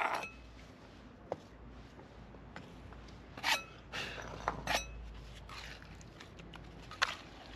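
A few short scrapes and knocks, the clearest about three and a half, four and three quarters, and seven seconds in, over a faint steady hum.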